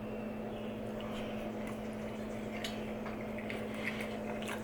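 Faint eating sounds, small wet clicks and chewing, scattered over a steady low room hum.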